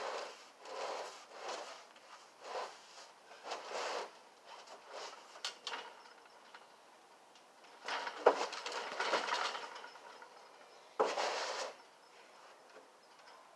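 Irregular scuffs and soft thumps of feet and hands moving on a trampoline mat. There is a sharp knock about eight seconds in and a short louder burst about eleven seconds in.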